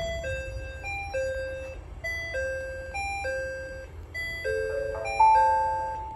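Electronic chime melody from a station train approach indicator, a simple tune of clean stepped notes, about two to three a second, ending in a chord and a loud held note about five seconds in. It signals that a train is approaching, here one bound for Mishima.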